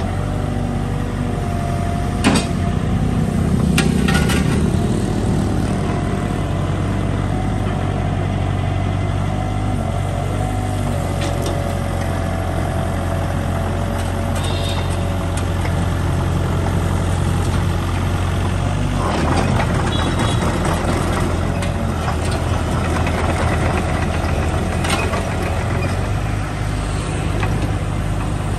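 Mitsubishi ME30 mini excavator's K4E four-cylinder diesel running steadily as the boom and bucket are worked, with a few metallic clanks, the sharpest about two seconds in.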